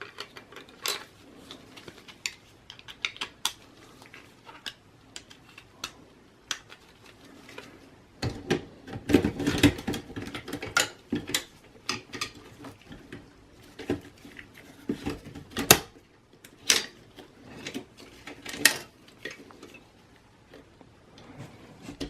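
Irregular clicks, clacks and knocks of plastic and metal parts being handled as a 3.5-inch hard drive is swapped in its drive caddy and fitted back into a desktop computer case. The clatter is busiest about a third of the way in, with one sharp knock a little past the middle.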